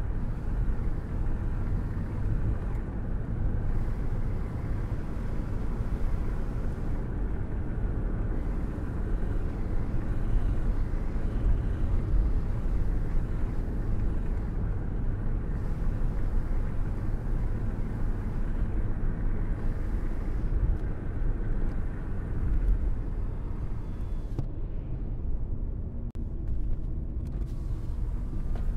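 A car driving along the road: a steady low rumble of engine and tyre noise.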